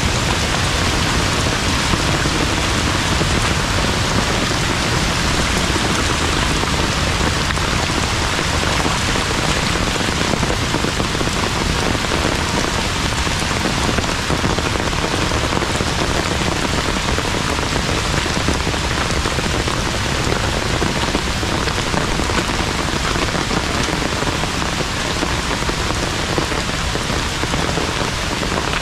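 Heavy rain falling steadily: a dense, even hiss with no let-up.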